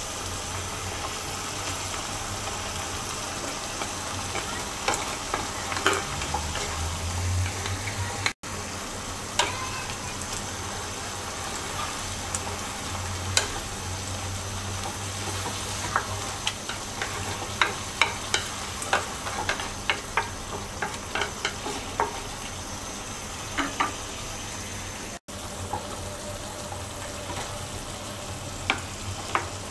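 Vegetable broth bubbling at the boil in a nonstick pan, with a wooden spatula clicking and scraping against the pan as blocks of instant noodles are pushed and stirred in. The clicks come thick and fast in the second half.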